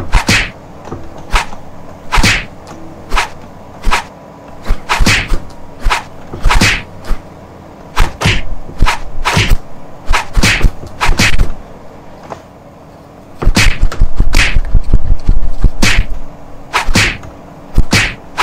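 Kubota U50 mini excavator's diesel engine running steadily under a rapid, irregular series of sharp cracks and snaps, typical of branches and wood giving way as a tree is pushed over. A heavier low rumble comes about three-quarters of the way through.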